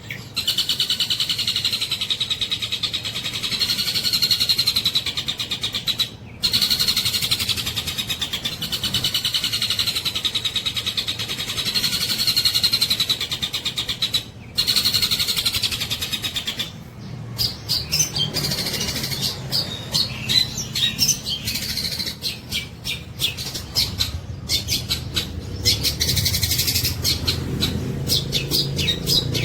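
Long-tailed shrike (cendet) singing loudly, mimicking a kingfisher's call (tengkek buto). Long runs of very fast repeated notes, broken by brief pauses about six and fourteen seconds in, give way to shorter, choppier notes from about seventeen seconds on.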